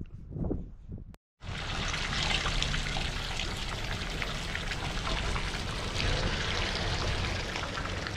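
Steady splashing of running water that starts after a brief break in the sound about a second in.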